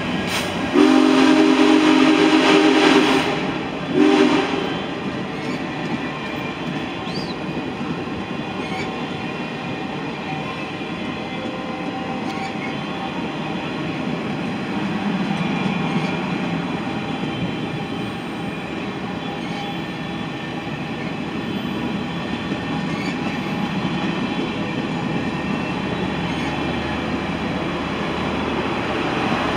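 A passing diesel locomotive's horn sounds a long chord blast about a second in, then a short one around four seconds. Then a train of passenger cars rolls steadily past, with wheels running on the rails.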